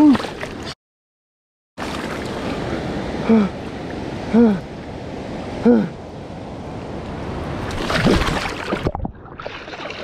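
River water rushing and gurgling close to the microphone, while a man who has slipped into the water lets out three short 'woo' exclamations. The sound cuts out completely for about a second near the start, and the water swells louder near the end.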